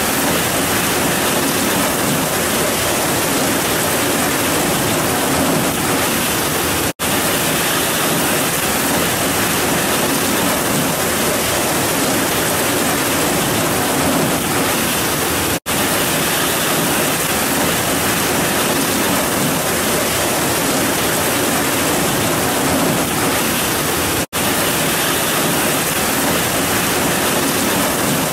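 Heavy rain pouring down in a steady, loud hiss. The sound cuts out for an instant three times, about every eight and a half seconds.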